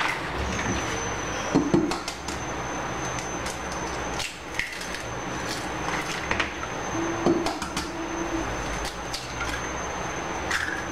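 Eggs being cracked on the rim of a stainless-steel bowl and the empty shells set down on a steel countertop: a scattering of short taps and knocks, the loudest about two seconds in, over steady background noise.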